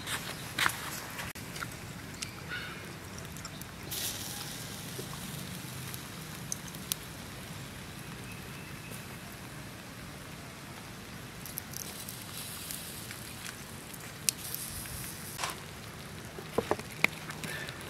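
Chicken sizzling on a wire grill rack over a charcoal fire, with steady hiss and scattered crackles and clicks.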